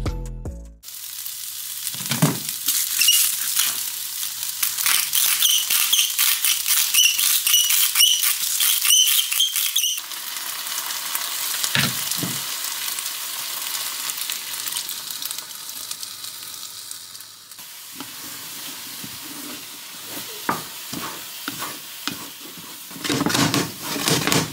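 A rice stir-fry sizzling in a non-stick frying pan while a wooden spatula stirs and scrapes through it, with small clicks and knocks against the pan. The sizzle is strongest in the first half, and the scraping grows louder near the end.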